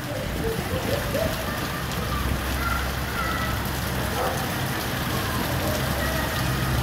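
Steady rain falling on a flooded street, an even hiss with no break.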